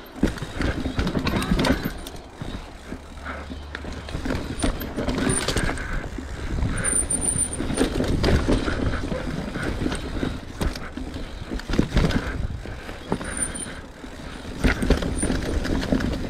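Mountain bike descending a rough, dusty dirt trail: tyres scrubbing over dirt and roots while the bike rattles and clatters with irregular knocks over the bumps, over a steady low rush of wind on the microphone.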